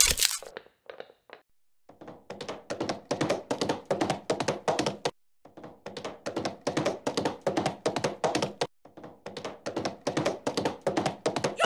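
Galloping clip-clop hoofbeats: rapid taps, about six a second, in three runs of about three seconds with short breaks between them. A sharp knock comes right at the start.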